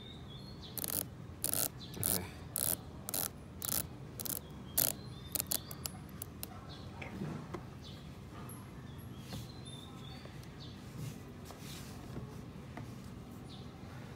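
The unidirectional 60-minute dive bezel of a Seiko Shogun diver's watch being turned by hand, giving about ten separate sharp ratchet clicks, roughly two a second, from about a second in to about six seconds in.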